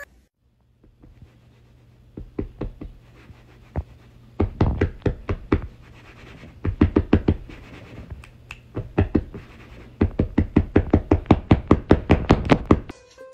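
A hand tapping quickly on a couch cushion in runs of sharp knocks, about five a second, with short pauses between the runs, over a low steady hum.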